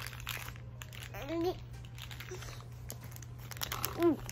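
Plastic packaging crinkling and rustling as it is handled, with a toddler making two short vocal sounds, one about a second in and one near the end.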